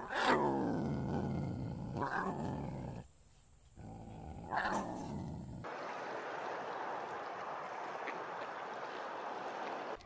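Lion roaring: a loud call falling in pitch right at the start, followed by two shorter, weaker calls. About five and a half seconds in it gives way to a steady even background hiss.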